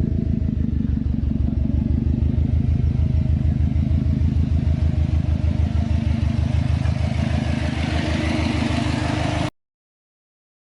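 Car engine and road noise heard while driving, a steady low pulsing hum with a rising hiss after about six seconds. It cuts off abruptly about a second before the end.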